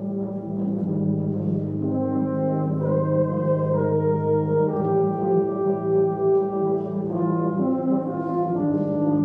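Euphonium and tuba ensemble playing a concert piece: held low tuba notes under moving euphonium melody lines, with a long sustained note in the middle.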